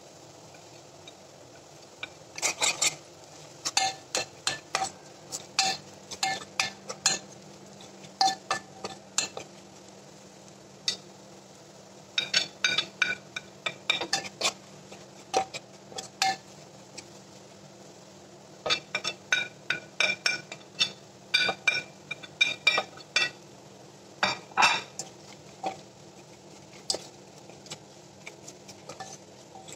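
A spoon clinking and scraping against the inside of a metal cooking pot while stirring frying onions, in three bouts of rapid, ringing clinks separated by short pauses.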